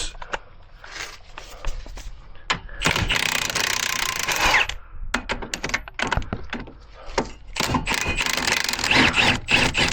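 Impact wrench hammering in two bursts of about two seconds each, one about three seconds in and one about eight seconds in, as it breaks loose and spins out the caliper bracket bolts, with clinks of tools and parts between.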